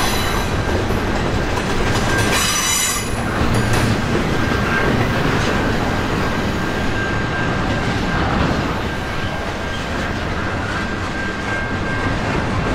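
Freight train rolling past at close range: a steady rumble and rail noise, with a thin steady wheel squeal. A louder, higher squeal rises about two to three seconds in.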